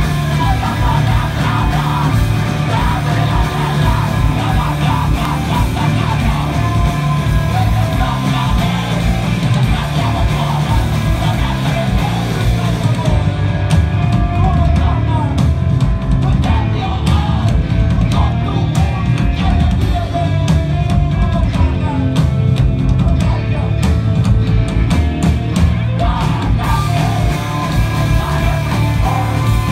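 Rock band playing loud live: electric guitars, bass guitar and drum kit together. The treble drops away for a stretch in the middle and returns near the end.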